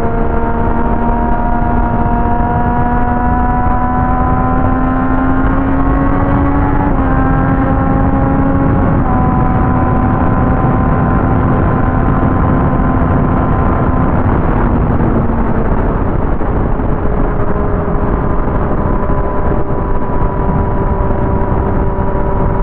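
Sport motorcycle engine running under way, its pitch climbing slowly, then stepping down twice with gear changes about seven and nine seconds in, and later easing off to a lower steady note, with heavy wind noise throughout.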